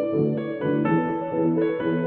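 Background music: a piano melody of short notes changing a few times a second over a sustained accompaniment.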